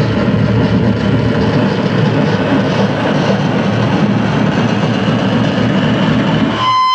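Live harsh noise from pedals and electronics: a loud, dense wall of distorted noise, heaviest in the low range. Near the end the low rumble drops out and a steady high tone comes in.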